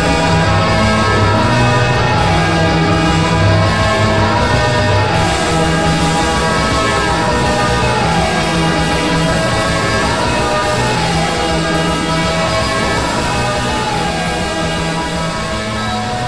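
Loud rock-style music with a repeating bass line and sliding notes above it, easing off slightly near the end.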